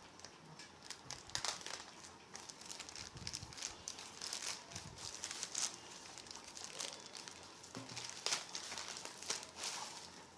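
Packaging crinkling and rustling as it is handled, with irregular small crackles and clicks throughout.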